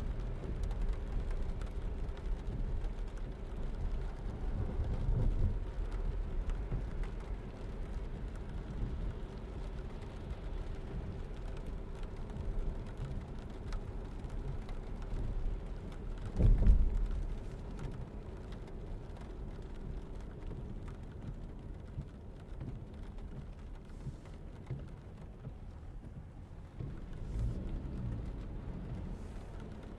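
Cabin noise inside a 2022 Lexus ES300h hybrid driving on wet roads: a steady low rumble and hiss of tyres on the wet surface. A single heavier low thump comes a little past halfway, and a faint steady hum fades out around then.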